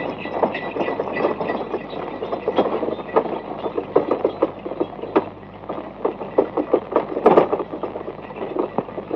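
Wooden bullock cart rattling and clattering as it rolls, a dense, irregular run of knocks with a louder clatter about two-thirds of the way in.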